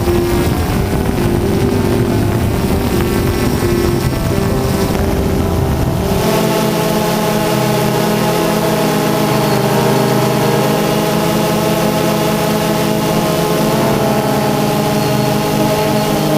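Steady hum of a DJI Phantom 2 quadcopter's motors and propellers. Its tone changes abruptly about six seconds in, when the deep rumble drops out and a set of higher tones takes over.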